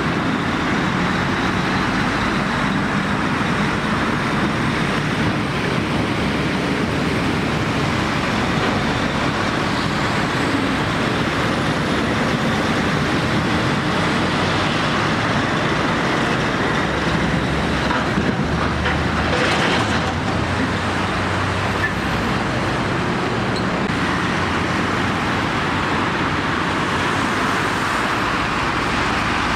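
Passing road traffic, steady throughout: a DAF XF articulated lorry pulling a container trailer drives by with diesel engine and tyre noise. Near the end a Renault tipper truck approaches.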